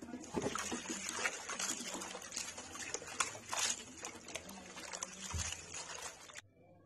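Hands swishing and lifting chopped leafy greens in a steel bowl of water to wash them: a busy run of water splashing and sloshing that stops abruptly near the end.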